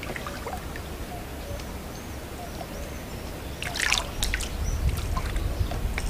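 River water lapping and trickling against a rocky bank over a low rumble. A short crackle of splashing comes about four seconds in, after which the rumble grows louder.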